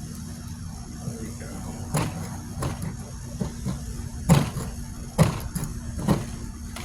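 Sharp knocks and scrapes, four main strikes spaced about a second apart with the loudest a little past the middle, as a tool works at the hard clay plug packed into a firework shell canister. A steady low hum runs underneath.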